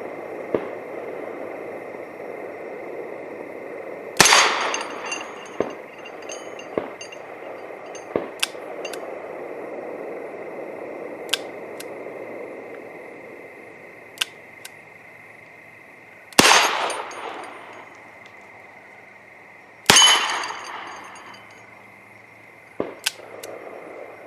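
Smith & Wesson Victory .38 revolver firing three shots, the first about four seconds in and the last two about three and a half seconds apart, each with a ringing echo. Light sharp clicks of the revolver's action come in between: the old surplus reloads include bad rounds that fail to fire.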